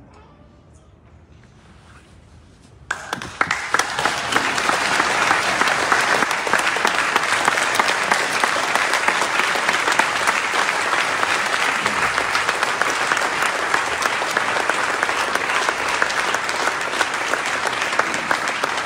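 A large church congregation breaking into applause about three seconds in, then clapping steadily and at length.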